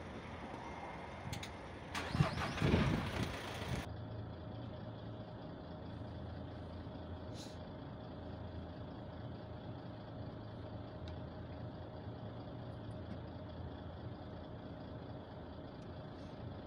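Steady low engine hum of idling vehicles in stopped traffic, with a louder rush of noise about two seconds in. After a change about four seconds in, a fainter steady low drone of distant engines continues.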